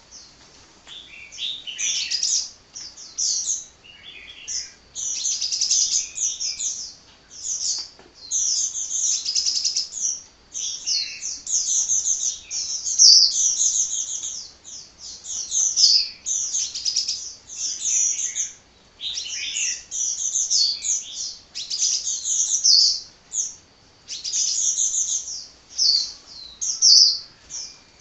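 Sunbird singing a fast, continuous song of rapid high-pitched notes, in phrases of a second or two broken by short pauses.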